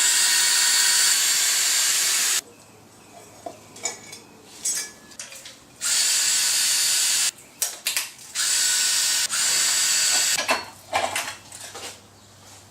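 A power tool running in three bursts of about two, one and a half and two seconds, spinning bolts off the engine block during teardown, with short clicks and knocks of parts being handled between the bursts.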